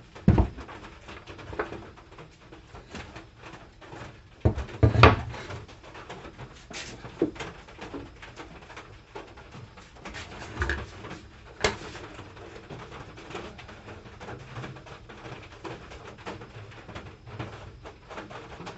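Wooden boards and a steel carpenter's square being handled and set down on a wooden work surface, giving a few scattered knocks and clatters, the loudest a pair of knocks about five seconds in.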